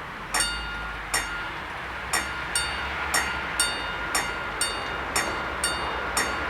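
Level crossing warning bells start ringing about half a second in: repeated ringing metallic strikes, roughly two a second and not quite evenly spaced, as the crossing's three bells are not in step. A steady low hum runs beneath them.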